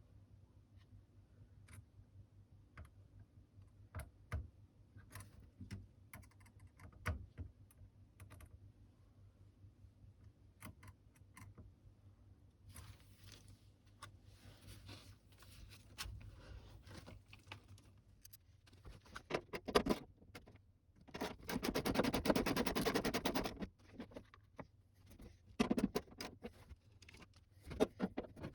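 Scattered light clicks, taps and scrapes of tools and parts being handled. About three-quarters of the way through, a louder rasping noise lasts around three seconds, followed by a few shorter ones.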